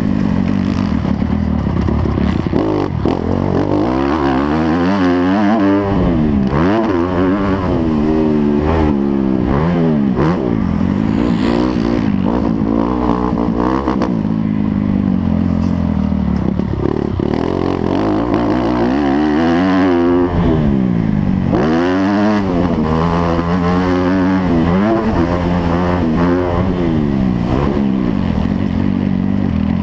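Motocross dirt bike engines at race pace, more than one at once, their pitch climbing and dropping over and over as the throttle opens and closes and the gears change.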